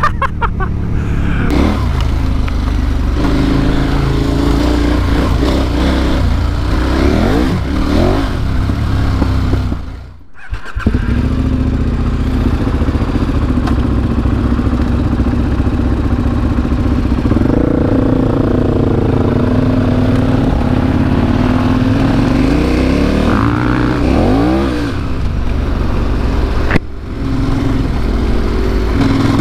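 Heavy adventure motorcycle's engine running under load on a dirt track, the revs climbing and dropping several times through the throttle and gear changes. The sound breaks off briefly about ten seconds in and again near the end.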